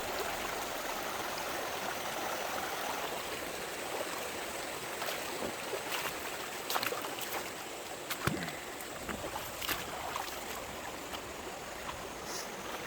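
Mountain stream running over rocks, a steady rush of water, with scattered short knocks from about five seconds in.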